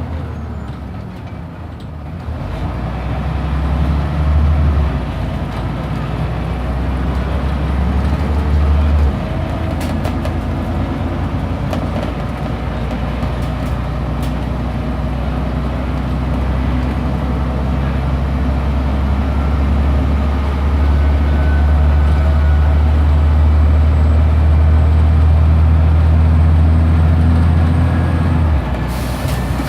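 Scania OmniDekka double-decker bus engine heard from on board, pulling away and building up, with gear changes about five and nine seconds in. It then runs steadily under load and eases off near the end, with a few rattles from the bodywork along the way.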